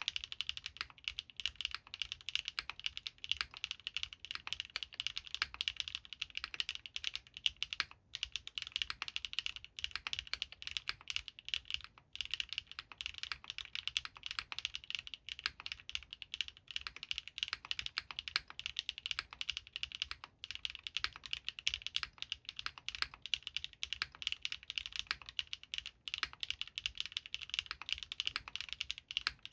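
Fast, continuous typing on a Geonworks Frog TKL custom mechanical keyboard with lubed Gateron RAW switches, aluminium plate and GMK doubleshot keycaps: a dense stream of key clicks with brief pauses.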